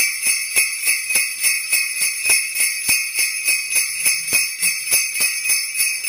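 Sleigh bells on a wooden handle, held upside down and struck with the fist in a steady rhythm, about three and a half strikes a second. Each strike gives a sharp, articulate attack over a continuous bright jingle.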